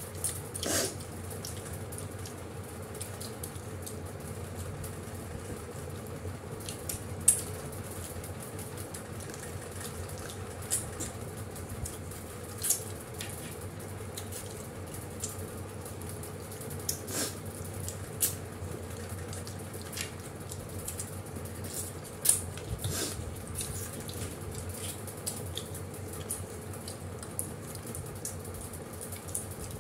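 Quiet eating by hand: scattered short clicks and smacks of chewing and fingers on plates, the sharpest about seven seconds in and again about twenty-two seconds in, over a steady room hum.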